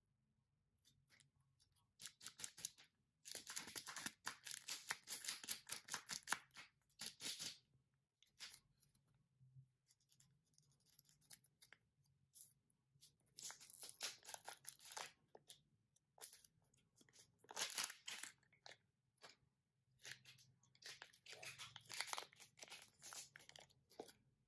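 Plastic wrapper of a Kinder Joy egg crinkling and tearing as it is stripped off by hand, then the plastic egg capsule being twisted apart and opened, in several bursts of crackling with quiet gaps between.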